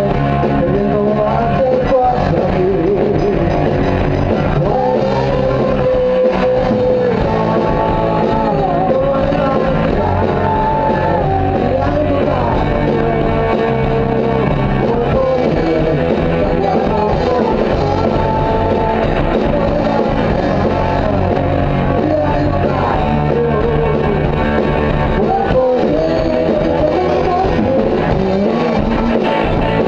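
Rock music played by a band, with guitar and a voice singing a wavering melody over a steady, full low end.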